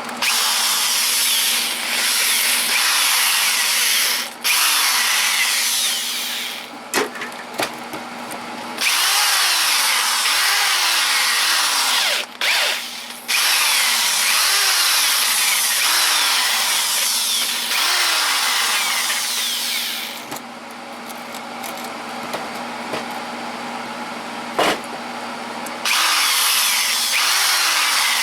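Wire brush scouring flaky rust off an old cast-iron machinist vise: harsh, scratchy scrubbing in long runs with brief pauses, softer for a few seconds about two-thirds through.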